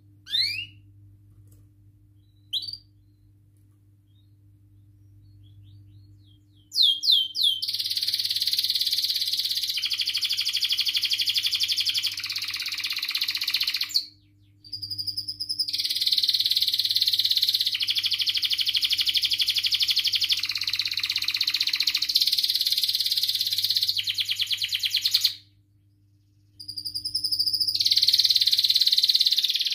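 Domestic canary singing. Two short rising chirps come first, then from about seven seconds in a long, loud run of fast rolling trills, broken twice by short pauses.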